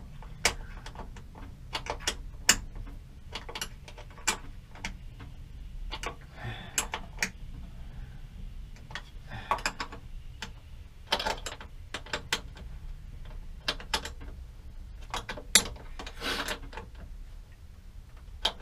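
A wrench undoing a battery terminal clamp: irregular metallic clicks and taps, some bunched into short quick runs, as the terminal is taken apart.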